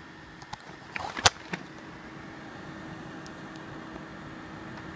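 Exhaust fan of a repaired ATX computer power supply spinning at steady speed with a constant whir and hum, a sign that the supply now powers up. A few clicks and one sharp knock come about a second in.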